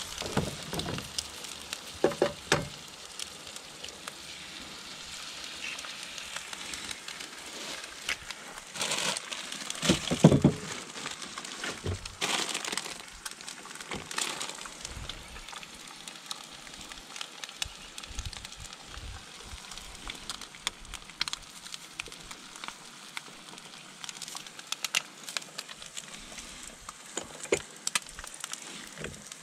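Eggs frying in a pan on a camp stove, a steady sizzle, with clicks, knocks and plastic bags crinkling as food packets and containers are handled; the loudest knock comes about ten seconds in.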